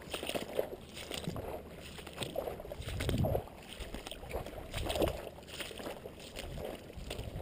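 Footsteps wading through shallow, muddy floodwater, a splash and slosh with each stride, roughly one or two a second, with the last steps landing on soft wet mud.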